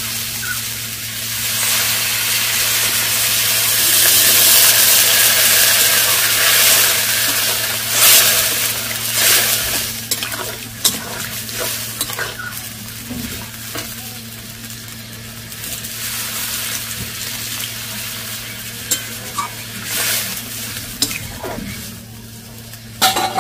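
Water hitting spice-fried potatoes in a hot kadai: a loud hissing sizzle that swells over the first several seconds, then dies down as the gravy settles to a simmer. A metal spatula scrapes and knocks against the pan as it is stirred.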